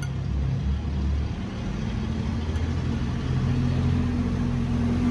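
A motor-driven machine running steadily with a low hum.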